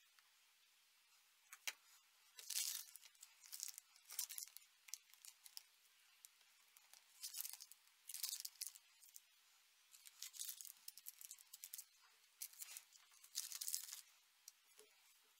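Clear plastic zip-lock bags of small kit parts crinkling and rustling as they are handled, in short irregular bursts.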